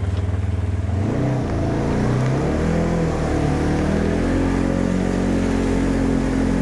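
Engine of a Polaris side-by-side UTV pulling away from low revs: pitch climbs about a second in, then it runs steadily at higher revs.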